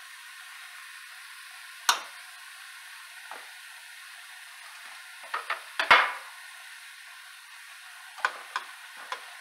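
Ground turkey sizzling steadily in a stainless steel pot as it browns, with a utensil knocking and clinking against the pot: one sharp clink about two seconds in, a cluster of knocks around six seconds in (the loudest), and a few lighter clicks near the end.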